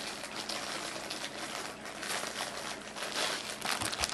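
Clear plastic wrapper crinkling in irregular rustles as it is handled and pulled open, with a short bump near the end.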